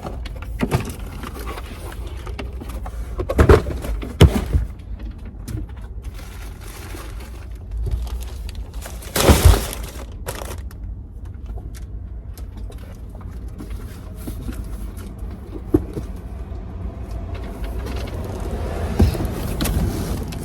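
Steady low road rumble inside a moving car, broken by a few sharp knocks, the loudest about halfway through.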